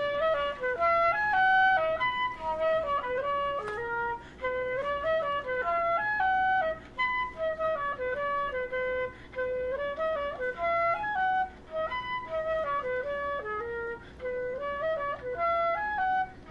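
Instrumental music: a light, single-line melody of short notes stepping up and down.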